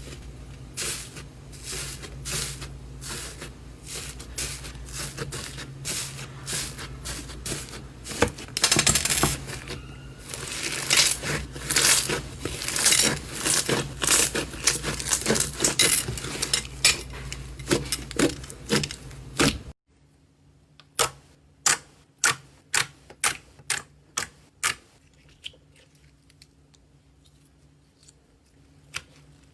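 Slime being played with, making dense crackling and popping clicks. About two-thirds through it cuts to a quieter stretch with a quick run of single sharp pops, then only faint ones.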